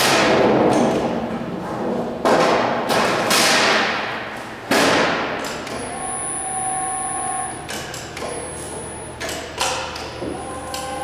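A long 24-gauge steel sheet wobbling and rattling as it is lifted and turned by hand: three loud booming flexes about two and a half seconds apart, each dying away over a second, then lighter knocks and taps as it is slid into place on the folder table.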